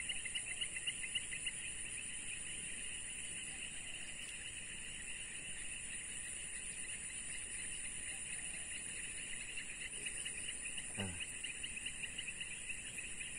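Insects chirring steadily in the waterside grass: a fast pulsing trill with a higher steady hiss above it. About eleven seconds in there is one short falling sound.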